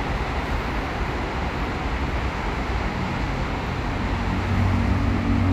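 Steady road-traffic rumble, with a deeper engine hum growing louder near the end.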